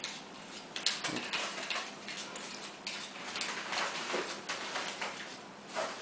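Handling noise from a touchscreen tablet: scattered light taps and rubbing as fingers work the screen and case.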